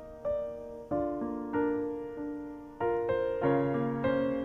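Background music: a slow piano melody, its notes struck about once or twice a second and ringing as they fade.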